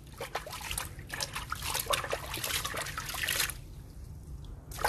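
Water trickling and splashing in a dense patter of small crackles that eases off about three and a half seconds in, with a short splash near the end.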